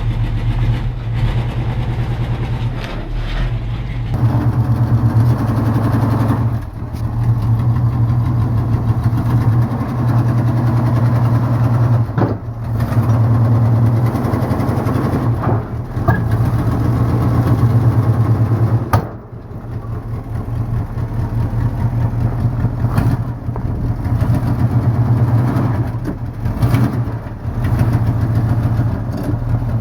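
1974 Dodge Challenger's 318 V8 engine running with a steady low, pulsing note that dips briefly three times, several seconds apart.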